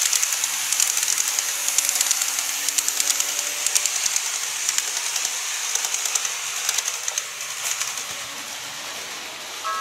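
KATO model of an E531 series electric train running past on model track: a steady hiss from its wheels and motor with rapid clicking as it rolls over the rail joints, fading away over the last few seconds.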